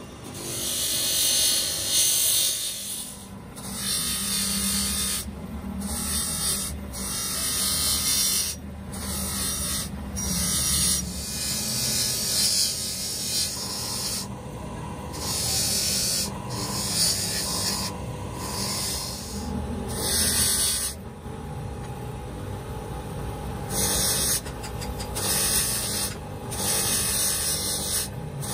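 A small steel jack part pressed against a spinning abrasive polishing wheel on an electric bench buffing motor: a steady hissing rub over the motor's hum. The rub breaks off and starts again many times as the part is lifted and turned, with a longer break about three-quarters of the way through.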